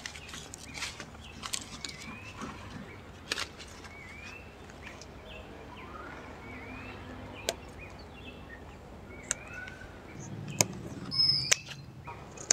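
A bird calling over and over, a short rising note repeated roughly once a second, with scattered light clicks. A louder rustle comes near the end.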